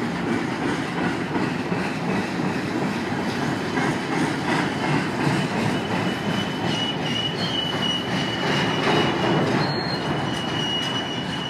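CSX freight train's container flatcars rolling past: a steady rumble of steel wheels on rail, with a thin, high wheel squeal coming in a little past halfway and holding, briefly dropping out once near the end.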